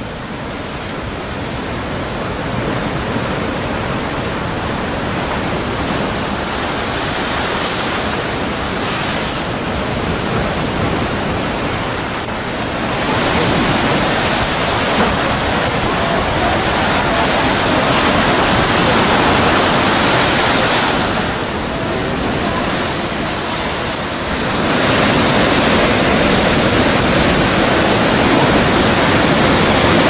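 Strong wind over a rough sea: a loud, steady rushing noise of wind and surf that swells and eases in a few long gusts.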